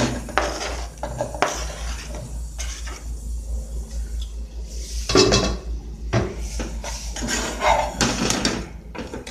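Diced bacon and calabresa sausage scraped off a plastic cutting board into a saucepan, then stirred with a silicone spatula. Irregular knocks and scrapes of board and spatula against the pot, the loudest about five seconds in.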